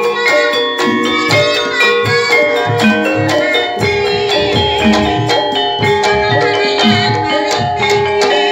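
Live Javanese folk-dance music from a small ensemble: bamboo xylophones play a fast, repeating interlocking pattern over regular hand-drum strokes, with a held tone running beneath.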